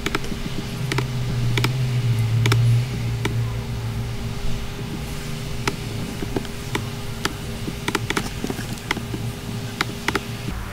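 Computer mouse clicks, about a dozen at irregular intervals, over a steady low hum that swells in the first few seconds.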